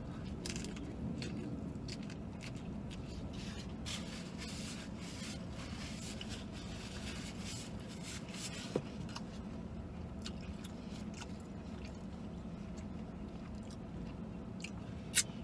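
Person chewing mouthfuls of a fried chicken sandwich, with faint crinkles of paper wrapper and napkin, over a steady low hum inside a vehicle cabin.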